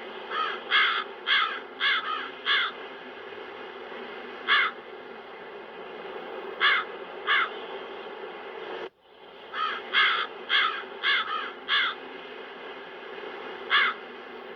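Crows cawing: a quick run of about six caws, then a few single caws, then another quick run, over a steady wind sound effect. The sound cuts out for an instant about nine seconds in.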